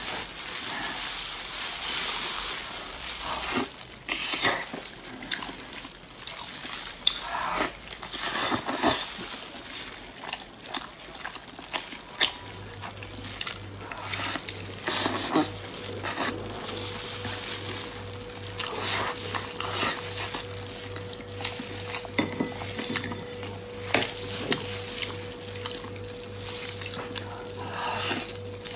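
Close-up eating sounds from a mouthful of sticky, sauce-glazed braised pork: irregular wet chewing, lip-smacking and mouth clicks. There is also the sticky tearing of the meat in plastic-gloved hands.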